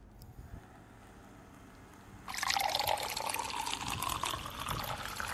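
Water poured from a metal kettle into a ceramic mug, starting about two seconds in and running as a steady stream.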